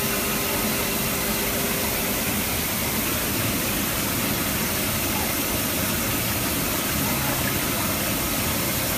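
Steady, even rushing hiss that does not change, strongest in the high end.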